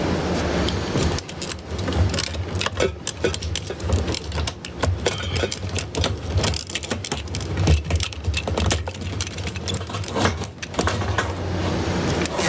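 Rapid, irregular clicks and rattles of plastic fuel hoses and their clips being handled and pulled through from the fuel tank, over a steady low hum.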